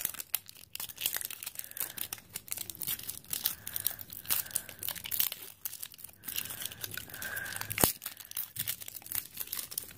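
Thin plastic wrapping crinkling and tearing as it is picked and peeled off a toy egg by hand, a dense run of small crackles with one sharp snap near the end.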